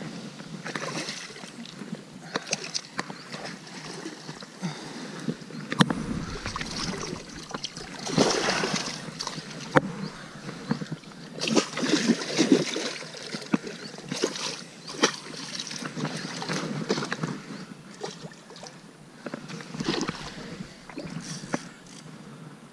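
Irregular splashing and sloshing of stream water, with occasional sharp knocks, as a hooked sea trout thrashes at the bank and is scooped into a landing net.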